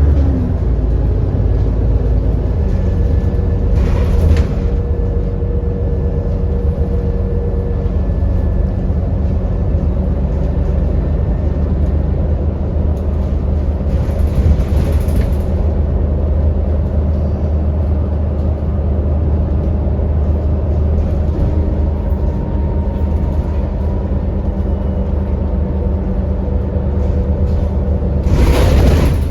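Alexander Dennis Enviro400 double-decker bus heard from on board while under way: a steady low engine and drivetrain drone with the cooling fan's 'hoover' whine. Short hisses of air come about four seconds in, around fifteen seconds in and near the end.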